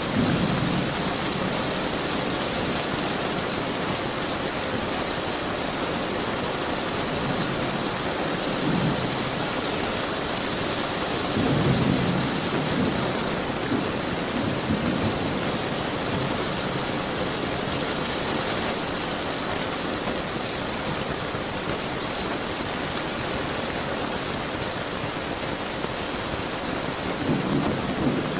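Steady rain falling, with low rolls of thunder rumbling up several times: at the start, around the middle and again near the end.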